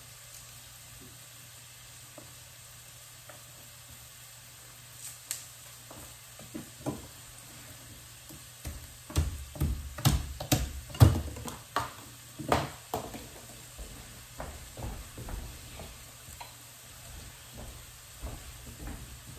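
Knife and garlic cloves knocking and tapping on a wooden cutting board while the garlic is peeled, in scattered taps at first, then a quick run of heavier knocks. Beneath them is a faint, steady sizzle of diced vegetables softening in a pan.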